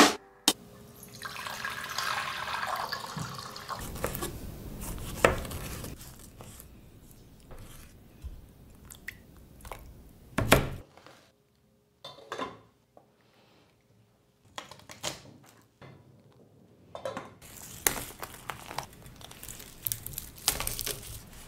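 Kitchen preparation sounds: water splashing in a small stainless steel pot as tomato slices go in, with scattered clicks and one loud knock about halfway through. Near the end a knife cuts through dried red chiles on a plastic cutting board with a run of crisp, crackly cuts.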